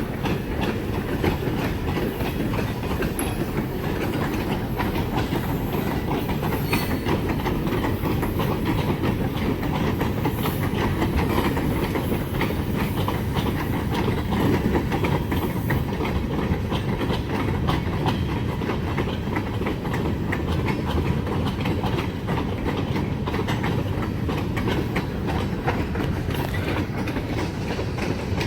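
Freight train rolling on the rails: a steady rumble of wheels with rapid, irregular clicking.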